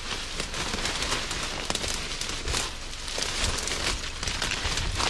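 Dense bamboo grass (sasa) rustling and crackling as a person pushes through the thicket, leaves and dry stems brushing and snapping with many small crackles throughout, with low thuds of footsteps underneath.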